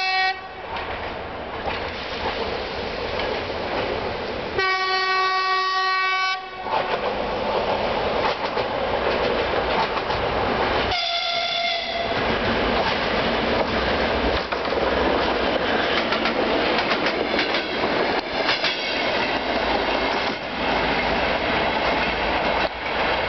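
TEP70BS diesel locomotive hauling a suburban train as it approaches and passes, sounding its horn in a long blast about five seconds in and a shorter one near twelve seconds. Between the blasts its engine rumbles and the wheels clatter over the rail joints as the cars go by.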